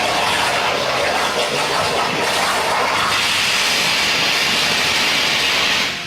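CNC plasma cutting torch cutting steel plate, a loud steady hiss that turns higher-pitched about halfway through and drops away abruptly at the very end.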